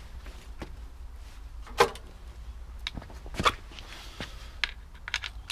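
A few sharp clicks and knocks of pressure-washer hose and lance quick-release fittings being handled and clicked together, the loudest about two seconds in, over a steady low rumble.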